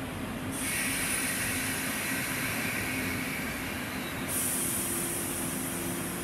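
117 series electric train starting to pull out of the station, with a steady low hum. A high hiss starts suddenly about half a second in and changes about four seconds in.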